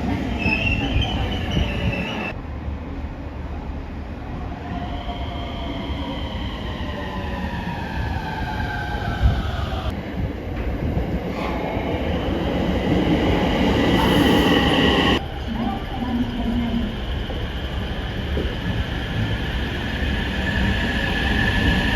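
Electric train running at a station, a steady rumble with whining tones that slide up and down in pitch. The sound changes abruptly a few times, as between separate takes.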